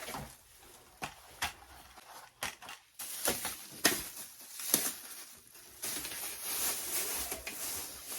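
Plastic handling noise: rustling and scattered sharp clicks and taps as a colour filter is worked onto a ring light, with a denser stretch of rustling from about three seconds in.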